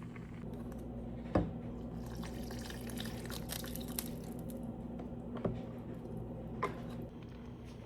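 Kitchen water sounds, dripping or running water, over a steady low hum, with three short sharp knocks spread through.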